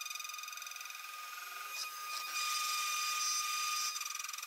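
CNC router spindle whining steadily as an end mill cuts aluminium plate along a trochoidal path. About two seconds in, the cut grows louder and rougher for a second and a half, then eases back.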